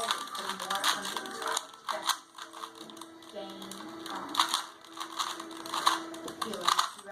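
Plastic Rubik's cube being turned quickly by hand: a fast, irregular run of clicking and rattling as the layers snap round.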